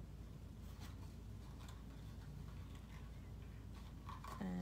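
Faint handling sounds of twine being wrapped around a small paper gift box: a few soft scattered ticks and rustles over a low steady hum.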